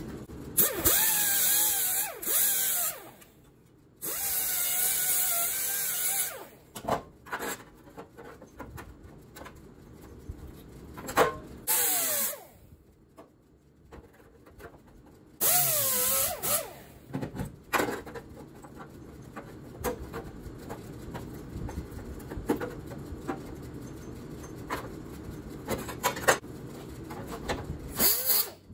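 Air-powered right-angle die grinder run in several short bursts of a few seconds, its whine wavering and dipping as it grinds the edges of a sheet-metal patch panel to trim it for fit. Light clicks and taps come between the bursts.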